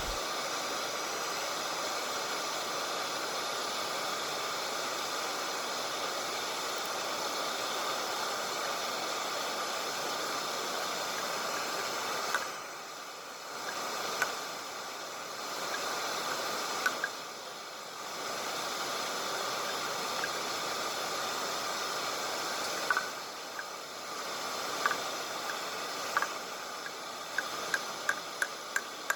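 Portable forge running with a steady hiss that drops away briefly a few times, with a few light clicks in the second half.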